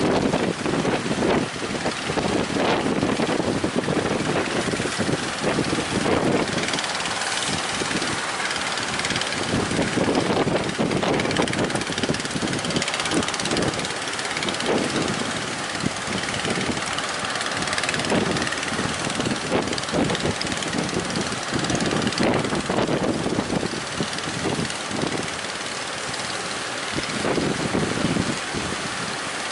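Strong wind buffeting the microphone, gusting up and down, over the steady running of a speedboat's outboard engine.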